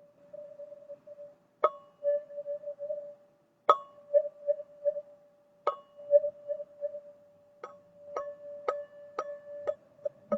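Teal ZenTube chime struck about every two seconds, each strike ringing on in one steady tone that wavers as it sustains. About seven and a half seconds in, the strikes quicken to about two a second.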